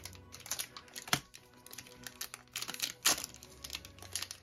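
Plastic foil wrapper of a Pokémon trading-card booster pack crinkling as it is handled and the cards are pulled out, with two louder crinkles about a second in and about three seconds in.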